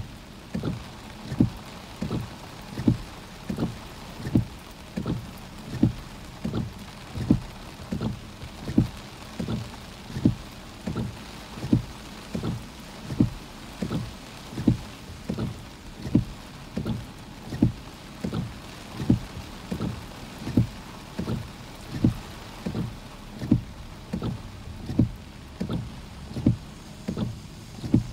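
Car windshield wipers running steadily on the wet windshield, knocking at each end of the sweep about every three-quarters of a second, over a steady hiss of rain and wind on the car.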